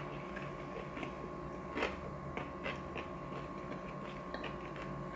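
Quiet eating at a table: a few soft, scattered clicks of metal chopsticks against dishes over a steady faint electrical hum.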